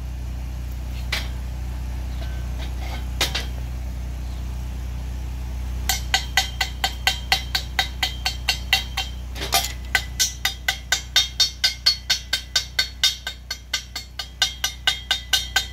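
Chipping hammer tapping slag off a fresh weld on steel square tubing: a few scattered taps, then from about six seconds in a quick, even run of sharp metal strikes, about four a second, over a steady low hum.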